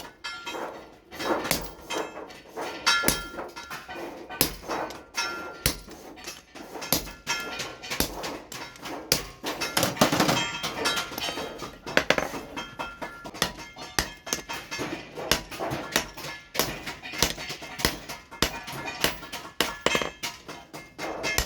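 Hammer blows on steel at the anvil while an axe head is forged: irregular metallic strikes, a few a second, with the anvil ringing after many of them.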